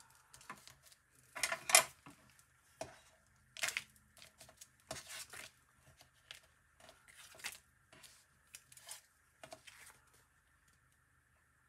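Card stock and paper being handled and pressed together: a string of short, irregular rustles and light taps, the loudest a sharp rustle about two seconds in.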